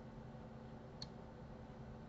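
A single computer mouse click about a second in, over a steady low hum.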